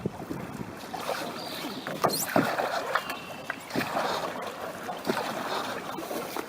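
Water splashing and sloshing around a small paddled boat, with irregular knocks and surges.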